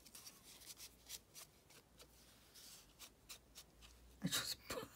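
Faint brushing and light tapping of an ink blending tool being swiped and dabbed along the edges of a paper scrap to distress it, with paper rustling. A few louder handling knocks come near the end.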